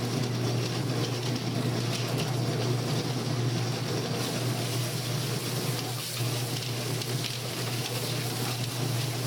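Motor-driven chicken plucker running: a steady motor hum under a constant hiss of noise.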